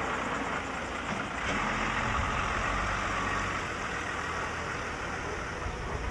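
Lorry's diesel engine running slowly close by, with the rumble of the cars behind it; the sound swells a little about a second and a half in.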